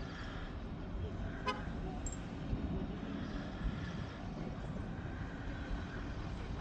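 Low steady rumble of a race car's engine idling at the start line, with one short high toot about a second and a half in.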